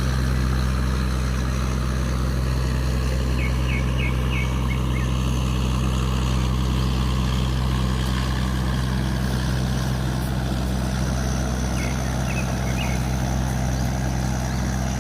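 Steady low drone of a river tugboat's diesel engine running as it tows upstream against the current. A few short high chirps come twice, about three seconds in and again near the end.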